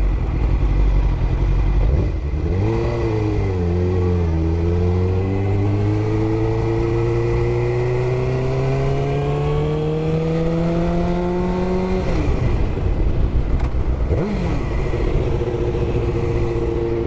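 Suzuki GSX-R750 inline-four motorcycle engine pulling away and accelerating, its pitch climbing steadily for about eight seconds. About twelve seconds in the throttle closes, a quick rev follows two seconds later, and the engine then runs at a steady cruise.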